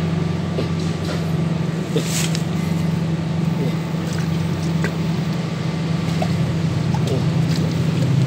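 Small engine running steadily with a low, even drone, with a few brief faint knocks and splashes over it.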